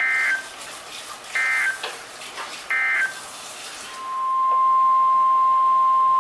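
Emergency Alert System SAME data bursts: three short warbling digital bursts about a second apart, the end-of-message code closing an alert. About four seconds in, a steady single-pitch alert tone starts and holds, the 1050 Hz warning tone that opens the next alert.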